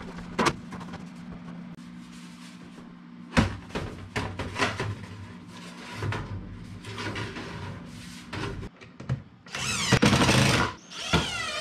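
Galvanized sheet-metal duct pipe being worked apart at a joint: scattered metal knocks and clicks, then loud scraping and rattling of the pipe near the end as the section is pulled free.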